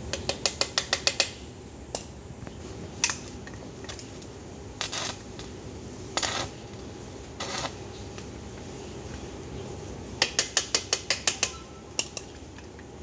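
Electric arc welding of thin steel: quick runs of sharp metallic clicks, about eight a second, near the start and again about ten seconds in. In between come three short hissing bursts of the arc, each about half a second, as the weld is tacked.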